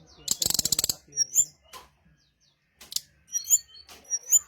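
Brown-chested jungle flycatcher calling: a fast, scratchy rattle in the first second, then short, high, rising chirps every half second or so after a brief pause.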